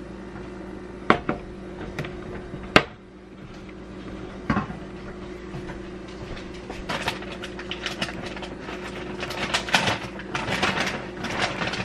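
A few sharp knocks and clicks as a plastic blender cup and a milk carton are handled, then almond milk glugging irregularly from the carton's spout into the cup of smoothie ingredients.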